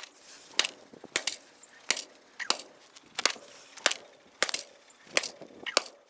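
A sledgehammer striking a DVD player's sheet-metal case, about nine sharp metallic blows in a steady rhythm a little over half a second apart, each with a brief ring.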